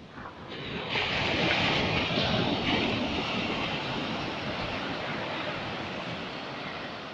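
Sea surf: a wave breaks about a second in, then its wash slowly fades.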